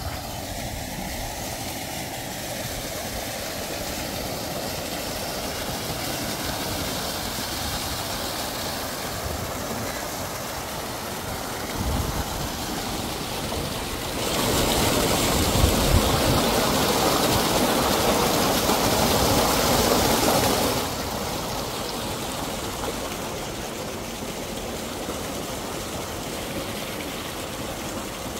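Water gushing from a 10 HP solar tube well's delivery pipe and spilling through a brick tank into the irrigation channel: a steady rushing noise, louder for about six seconds in the middle.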